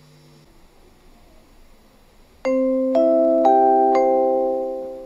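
Four-note rising chime from the station's public-address speakers, the notes struck about half a second apart and ringing on over one another before fading out near the end: the attention chime that opens a train announcement.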